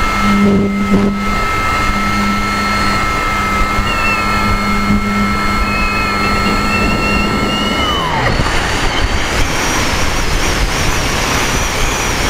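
A radio-controlled model plane's motor whines at a steady high pitch over wind rushing past the onboard camera. About eight seconds in, the throttle is cut and the whine falls away, leaving only the wind rush.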